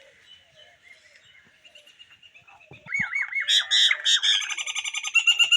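Small songbird singing: faint chirps at first, then about halfway through a loud burst of fast trills and quickly repeated high notes.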